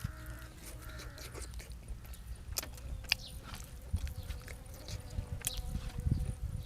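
A person chewing and biting food close to the microphone, with irregular wet clicks and crunches.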